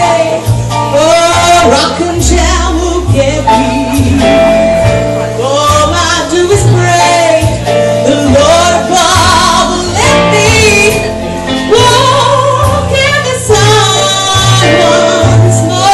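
Woman singing a jazz standard live into a microphone, her voice wavering in a strong vibrato over a band accompaniment with a bass line moving underneath.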